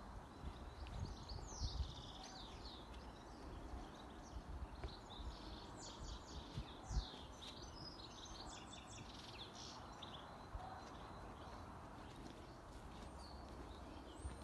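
Small birds chirping and singing, a quick run of short high notes through the first two-thirds, over a steady low rumble. A few dull thumps, the loudest about seven seconds in.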